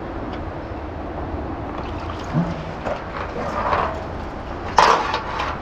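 Steady hiss of rain falling on the water. Near the end comes a single sharp clatter as a bungee mooring rope is worked against the dock's metal rail.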